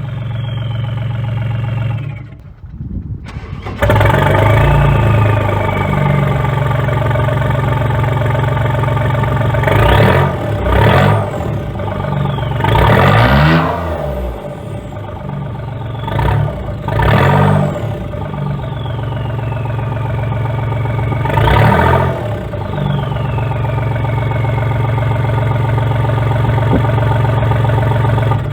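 Three-cylinder 1.4 TDI PD diesel engine breathing through a straight-through 3-inch stainless exhaust. It cuts out and is restarted about three seconds in, then idles with a series of short sharp revs. After each rev the turbo whistle falls away.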